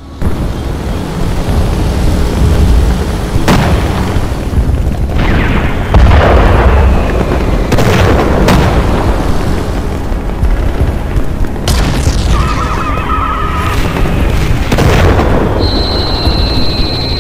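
Battle sound effects: explosions and cannon-like booms over a continuous low rumble, with about seven sharp blasts spread through, and a steady high-pitched tone coming in near the end.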